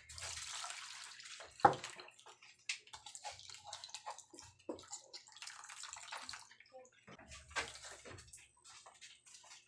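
Milky liquid sloshing and splashing as a plastic dipper scoops and pours it in a metal basin, with one sharp knock about two seconds in and scattered small clicks.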